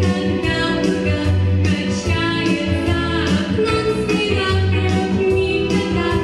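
Pop song with a singing voice over guitar, bass and drums, keeping a steady beat of about two strokes a second.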